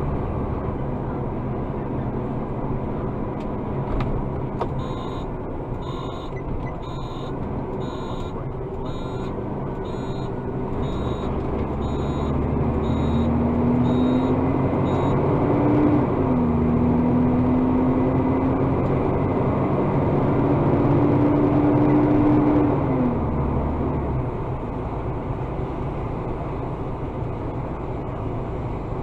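Garbage truck's diesel engine running in the cab, twice revving up for several seconds and then dropping back. A warning beeper sounds about once a second for about ten seconds.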